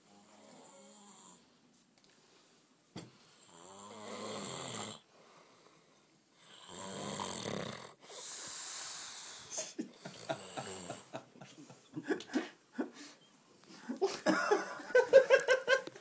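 A man snoring: a few rough, rattling snores of one to two seconds each, several seconds apart. In the last few seconds come short, irregular clicks and choppy pulses.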